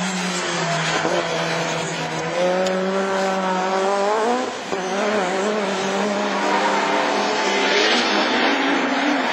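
Rallycross cars' engines revving hard under acceleration, the pitch climbing, dropping at a gear change about four and a half seconds in, then climbing again.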